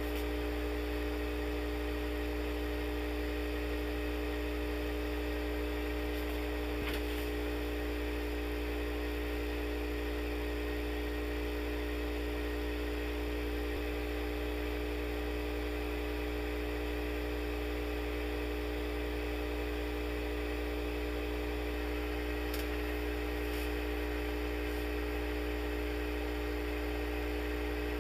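Steady hum of the shaker vibrating the silicone oil bath at 60 Hz, with a few faint ticks.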